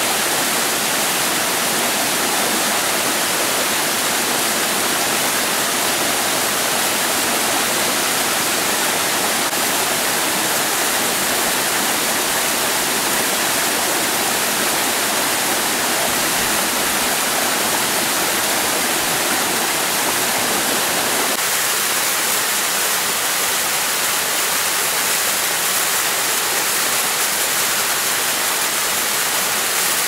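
Waterfall of about 25 metres crashing down a rock face into a pool: a steady, dense rush of falling water. About two-thirds of the way through, the deeper part of the sound falls away, leaving a thinner hiss.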